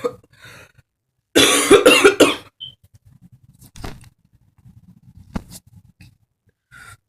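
A woman's short run of about four quick coughs, a forced burp attempt that comes out as coughing instead of a burp. A couple of faint clicks follow.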